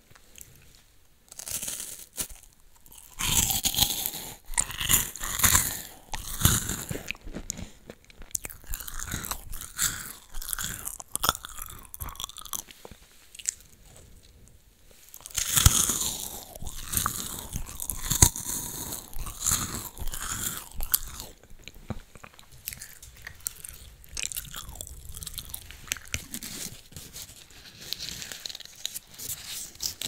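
Close-up biting and crunchy chewing of a Loacker cream-filled wafer, with many crisp crackles. The crunching is loudest in two spells, about three and about fifteen seconds in, and softer chewing comes between them.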